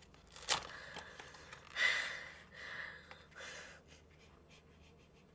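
Short breathy mouth noises from a person eating noodles close to a microphone: three or four quick gasps or sucks of air, after a sharp click about half a second in.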